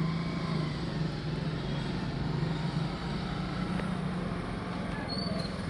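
Small motorcycle engine running steadily at low speed, its pitch rising and falling slightly about halfway through.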